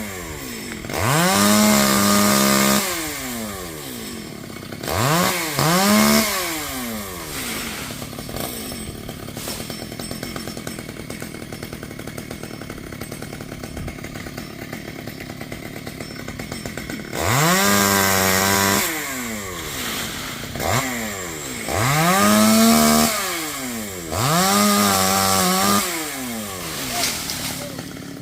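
Two-stroke chainsaw revved up to high speed and let back to idle again and again: about six bursts of throttle, each a second or two long, with a long stretch of idling in the middle.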